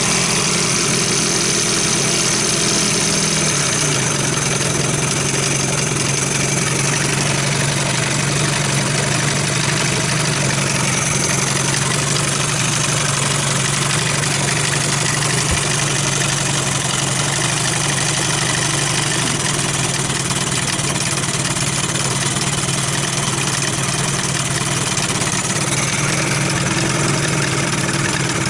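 Johnson-Evinrude two-stroke outboard motor idling steadily; its pitch drops slightly a few seconds in.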